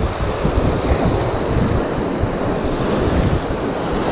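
Wind buffeting the microphone over the steady wash of surf breaking on a rocky shore.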